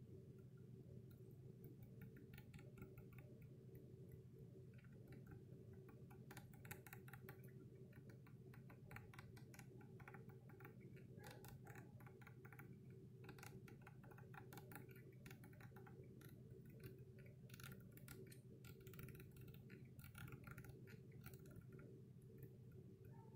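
Faint runs of small quick clicks from the controls of an Arduino ventilator's operation panel as its settings are stepped up and down, over a steady low hum.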